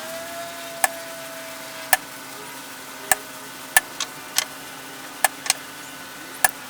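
A small power-tool motor running at a steady pitch, with about nine sharp, irregularly spaced taps as hole points are marked on the wooden vise jaw blank.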